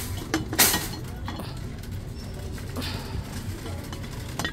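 A few light clinks and knocks as metal lantern clips and a small birdhouse are handled, the sharpest about half a second in, over a steady low hum.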